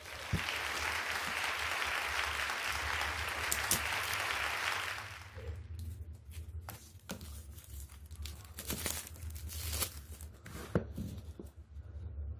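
Packaging on an iPad Pro box being torn open, a steady tearing for about five seconds, followed by scattered light clicks and rustles of handling.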